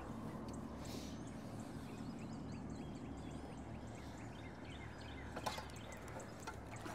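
Quiet open-air ambience: faint songbird chirps and whistles over a low steady hum, with a few light clicks.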